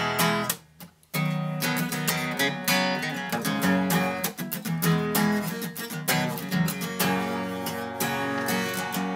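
Acoustic guitar strummed steadily as an instrumental break in a song, with a brief pause about a second in.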